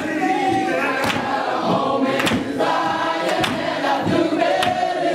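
Many voices singing a gospel song together, the notes held long, with a sharp beat landing about once a second.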